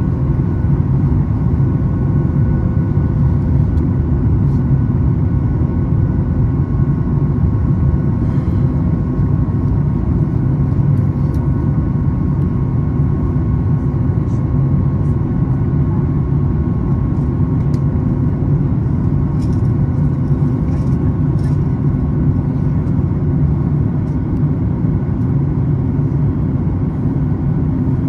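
Steady cabin drone of a Boeing 737 MAX 8 in flight, heard from a window seat beside the wing: a low rumble of its CFM LEAP-1B engines and the airflow, with a few faint steady tones above it.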